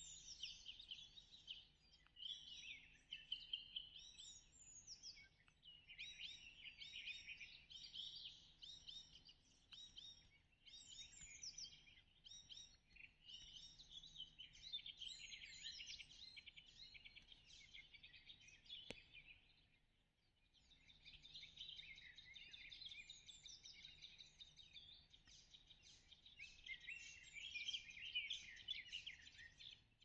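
Several songbirds singing at once in a dense, overlapping chorus of quick, high chirping notes, with a brief lull about two-thirds of the way through.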